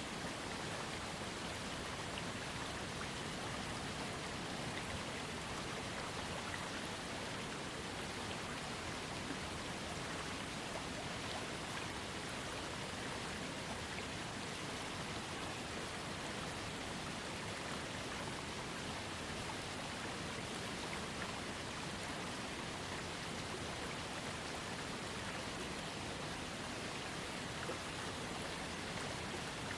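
Small waterfall on a trickling creek: water splashing and falling in a steady, even rush with fine droplet patter.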